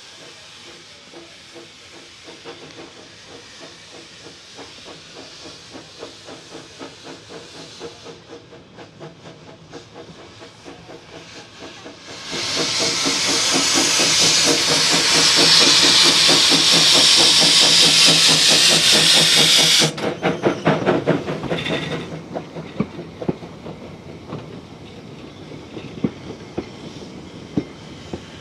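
Narrow-gauge steam locomotive hissing, then a loud rush of escaping steam for about eight seconds that cuts off suddenly. A short run of rapid beats follows, then the carriages roll past with scattered clicks of wheels on rail joints.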